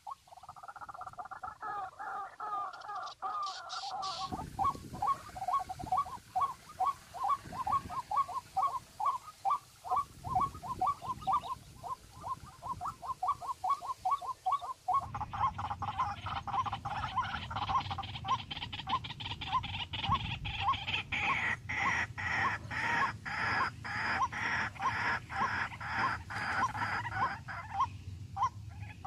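A bird calling a long, even series of short notes, about three or four a second, without a break. From about 15 seconds in, a low rumbling noise runs underneath.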